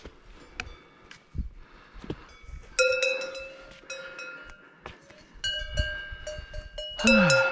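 Cowbells on grazing cows clanking as the cows walk. After soft scattered clicks and steps on leaf litter, the bells ring out in several separate strikes from about three seconds in, each ringing on and fading.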